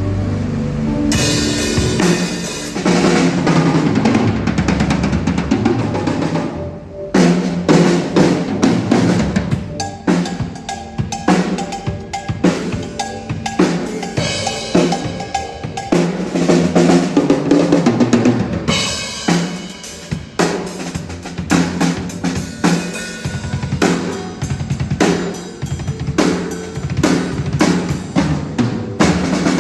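Drum kit played at full volume: bass drum, snare with rimshots, and fills under ringing cymbals, with a short break about seven seconds in.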